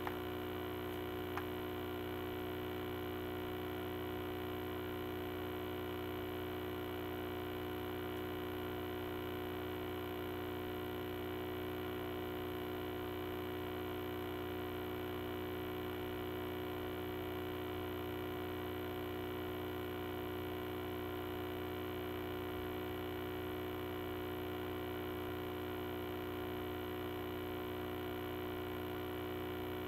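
Steady electrical hum with a buzzy edge, unchanging throughout, with a single faint click about a second and a half in.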